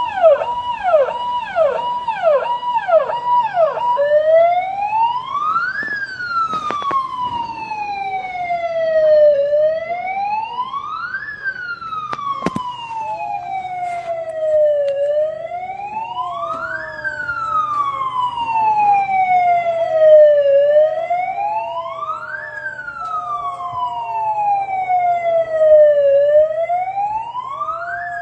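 Police vehicle's electronic siren, first in a fast yelp, then switching about four seconds in to a slow wail that rises quickly and falls slowly, about every five and a half seconds.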